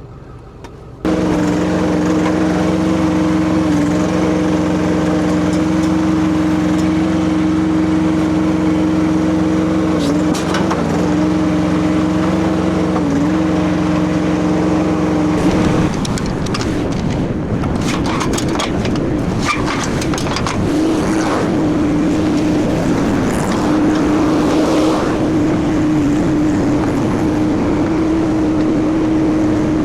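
Kubota diesel engine of a Rippa RS04 mini skid steer running hard at steady high throttle. About halfway through the sound turns rougher as the machine works and moves, with several metal clanks, before the steady engine note returns.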